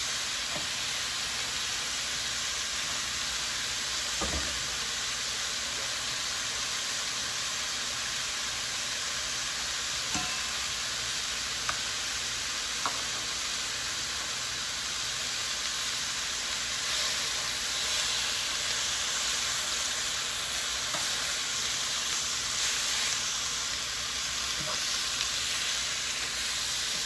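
Beef strips sizzling in butter in an electric skillet, a steady frying hiss. A few sharp clicks come from a utensil against the pan as the strips are moved about.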